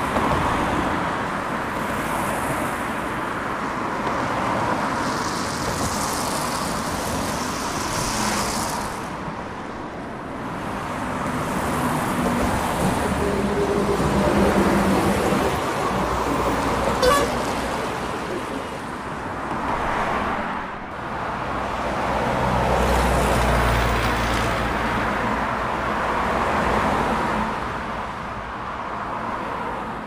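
Road traffic: motor vehicles passing with engine rumble and tyre noise, and a vehicle horn tooting.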